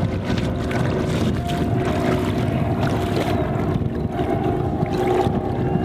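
Wind buffeting the microphone: a steady, fluctuating low rumble.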